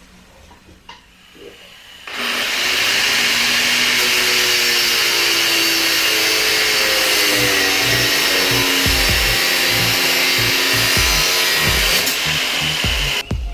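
A power tool runs steadily as it works on the rear-suspension parts, a loud hissing sound that starts about two seconds in and stops abruptly just before the end. Background music plays underneath.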